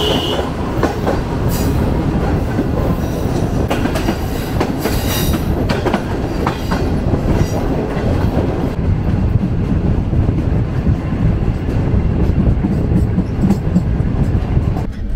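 Green Line Express passenger train running: a loud, steady rumble of the moving coaches with scattered sharp clacks of the wheels over the rail joints.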